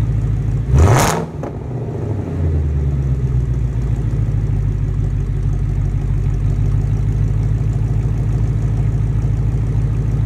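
Ford Mustang GT's Coyote 5.0 V8 idling through an MBRP aftermarket exhaust, with one quick throttle blip about a second in before it settles back to a steady deep idle.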